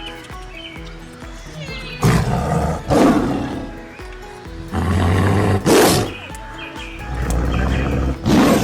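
A big cat roaring: three long, loud roars a few seconds apart, over background music.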